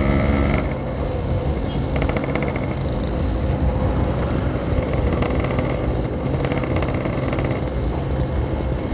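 Yamaha RX-King's 135cc two-stroke single-cylinder engine running at a steady cruising speed while riding.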